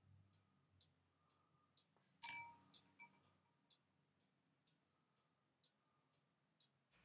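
Near silence with faint, even ticking about twice a second, and one short, light ringing clink a little over two seconds in.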